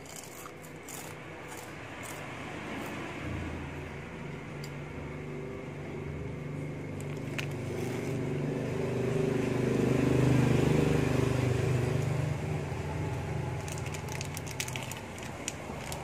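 A motor vehicle's engine hum that swells to its loudest about ten seconds in and then fades, with plastic snack wrappers crinkling near the end.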